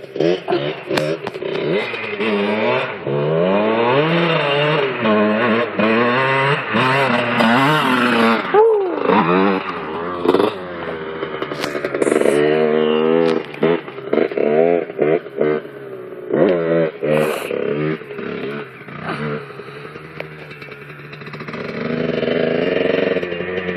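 Kawasaki KX125 two-stroke motocross bike being ridden, its engine revving up and down over and over as the throttle opens and closes and it shifts gears. It goes quieter for a couple of seconds near the end, then runs louder and steadier again.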